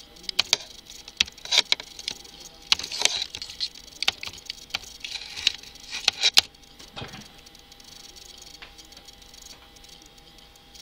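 Computer keyboard keystrokes: irregular clicks and taps during Nepali text entry, stopping about six and a half seconds in.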